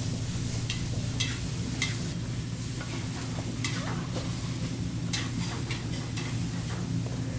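Cooking in a kitchen: metal utensils stirring and clinking against a pan, with a few sharp clinks over a steady low hum and a faint sizzle.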